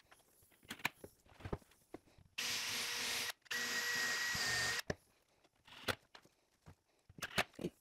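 Power drill running in two steady bursts, about a second and then about a second and a half with a brief stop between, drilling or driving screws into the wooden cabinet panels. Sharp clicks and knocks of parts being handled come before and after.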